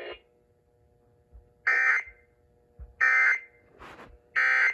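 Emergency Alert System end-of-message signal on NOAA Weather Radio: three short, identical bursts of buzzing digital data tones, about a second apart, closing the tornado warning.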